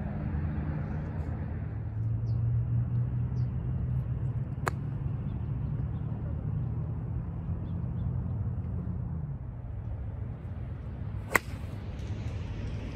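Two sharp clicks of a golf club striking a ball, one a little under five seconds in and a louder one near the end, over a steady low hum that eases off about nine seconds in.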